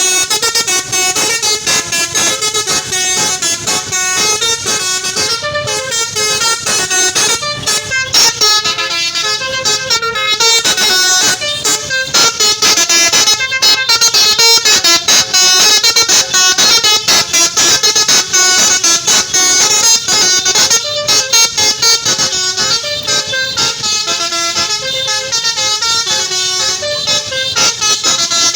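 A bus's Basuri telolet horn, a multi-tone air horn, playing a melody of rapidly changing notes without a break.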